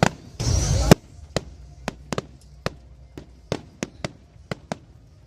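Fireworks exploding at a display: a loud rushing burst lasting about half a second, cut off sharply near the start, then about a dozen sharp, irregularly spaced bangs and cracks.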